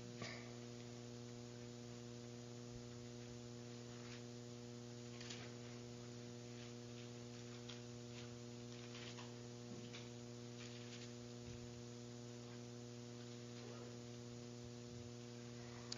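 Steady electrical mains hum from the church sound system, with a few faint rustles and taps scattered through it as pages are handled at the pulpit.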